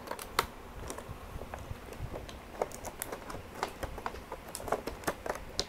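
Clear plastic window tray and cardboard box of an action figure being opened and handled by hand: irregular small clicks, crackles and taps of stiff plastic.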